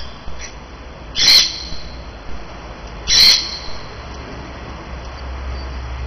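Female Siberian husky in heat giving two short high-pitched cries about two seconds apart, straining to get out through a gate, with a few faint taps between.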